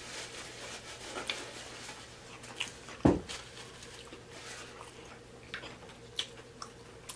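Close-miked chewing of fried seafood, with small wet smacks and mouth clicks, and one dull low thump about three seconds in.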